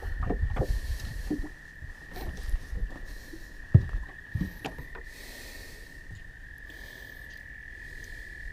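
A steady high trill of calling frogs runs throughout. Over it come irregular knocks and thumps of gear being shifted about in an aluminum boat during the first half, the loudest a sharp knock about four seconds in.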